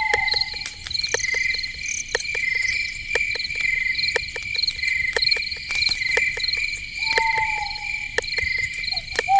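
Night forest ambience of crickets chirping in quick, evenly repeated trills, with scattered sharp clicks. A lower, drawn-out falling call is heard at the start, about seven seconds in, and again at the end.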